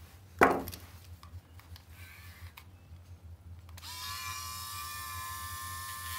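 Dog nail clippers snap through a toenail about half a second in, one sharp clip. Just before the end a Dremel rotary tool with a sanding drum is switched on and runs with a steady high whine, ready to grind the clipped nail smooth.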